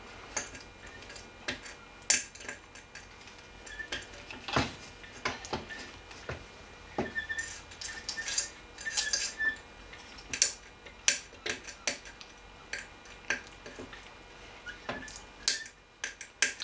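Irregular metallic clicks and scrapes of a metal wire, an unfolded paperclip, poking through the clogged holes of a Miele vacuum cleaner's motor fan to free caked carpet-underlay residue, with a few short squeaks about halfway through.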